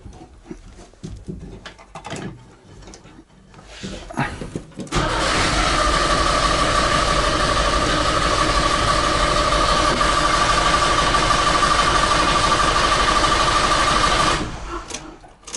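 Starter motor cranking the Trabant 601's two-stroke twin for about ten seconds without the engine catching. It sets in suddenly about five seconds in as a steady whine, sags slightly, and cuts off. Before it come a few faint knocks and clicks.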